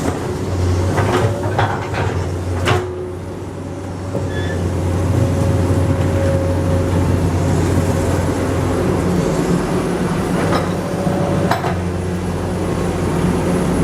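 Komatsu PC200 excavator's diesel engine running steadily under work, getting louder about five seconds in, with a few metallic clanks in the first three seconds and again near the end.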